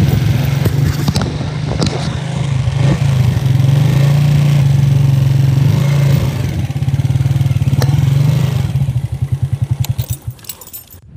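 Small motorcycle engine running as the bike is ridden over rough ground, with occasional rattles. About nine seconds in the engine slows until its separate beats can be heard, then dies away near the end as the bike stops.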